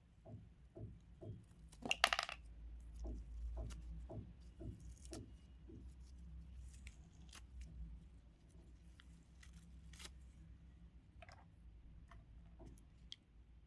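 Small craft items being handled close up: irregular light clicks and taps, with a louder, noisier burst about two seconds in.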